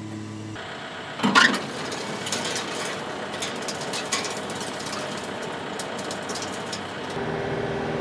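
TYM tractor's diesel engine running with its PTO turning a WoodMaxx WM-8M 8-inch wood chipper, which is running empty. There is a loud knock about a second and a half in, then scattered clicks and rattles, and a steadier engine hum near the end.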